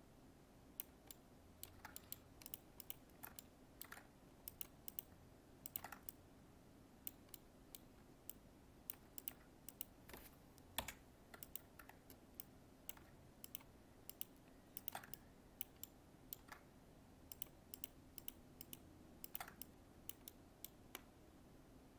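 Quiet, irregular clicking of a computer mouse and keyboard, often in quick pairs and small clusters, over a faint steady hum.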